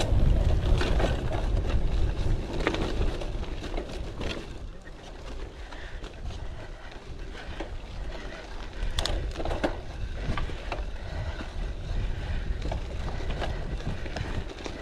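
Gravel bike ridden over a rough, bumpy dirt trail: tyres rolling on the ground and the bike rattling and knocking over the bumps, with wind buffeting the action-camera microphone. It is loudest over the first few seconds.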